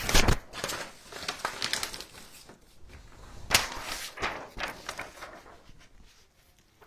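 Handling noises at a craft table: rustles, light taps and clicks, with the loudest knocks just after the start and at about three and a half seconds, fading to quiet near the end.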